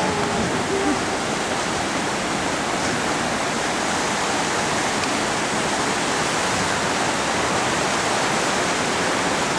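Steady rush of a fast-flowing rocky river, water running over rocks and rapids below a footbridge.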